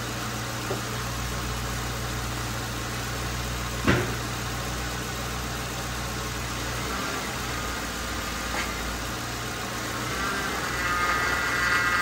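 Lincoln Town Car's 4.6-litre V8 idling steadily with its power steering freshly refilled. One sharp knock comes about four seconds in. From about seven seconds a whine with several tones comes in, growing louder near the end as the wheel is turned back and forth: the power steering pump under load.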